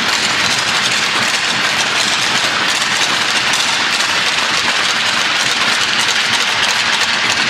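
Crowd applause: dense, steady clapping that breaks out suddenly and holds at an even level.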